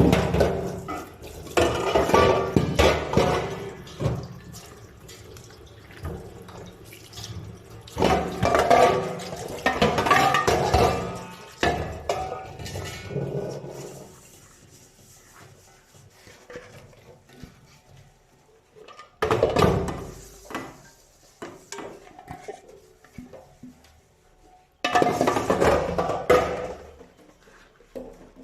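Water running from a tap into a sink in several bursts a few seconds long, with dishes clattering as they are washed and rinsed by hand.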